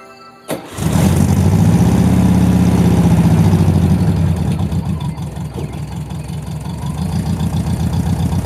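1979 Volkswagen Bus's air-cooled engine starting: a sharp click about half a second in, then the engine catches and runs loudly with a steady low pulse.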